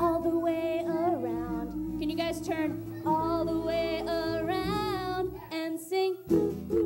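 Women and children singing a children's song over acoustic guitar and bass guitar.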